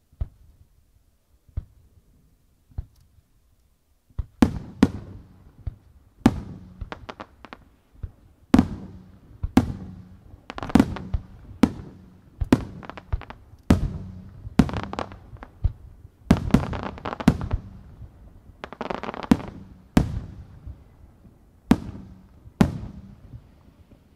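Aerial firework shells launching and bursting: a few separate reports in the first three seconds, then from about four seconds in a rapid string of loud bangs roughly once a second, each trailing off in an echo.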